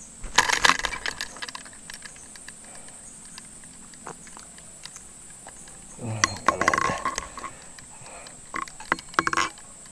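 Handling noise from a fishing crossbow and a freshly speared fish: a burst of sharp clicks and knocks about half a second in, a louder scuffle around six to seven seconds, and a few more sharp clicks near the end.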